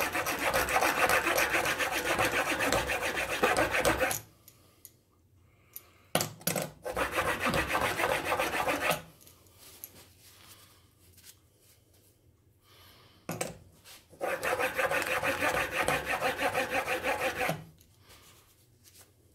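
Chisel in a roller honing guide pushed back and forth on a fine diamond sharpening plate: steel scraping on the plate in rapid, even strokes, in three runs of a few seconds with short pauses between, polishing the bevel to a shine.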